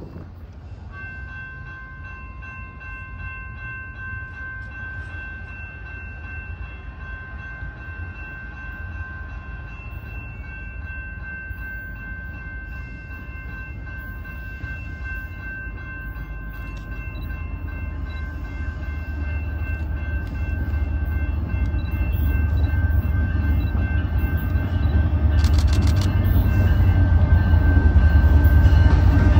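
A diesel freight locomotive approaching, its low engine rumble building steadily louder over the second half. Several steady high-pitched ringing tones sound alongside it for most of the time.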